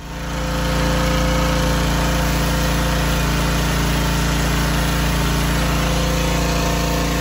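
Pressure washer running steadily: an engine's constant drone under the hiss of the water jet spraying a rusty metal pole. It builds up over about the first second, then holds level.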